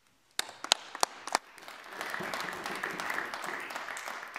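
Members applauding in a parliamentary chamber. A few scattered claps come about half a second in, then the clapping fills in to steady applause from about two seconds in.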